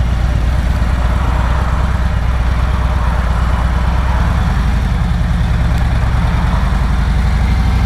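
Harley-Davidson Road Glide Special's Milwaukee-Eight V-twin idling steadily.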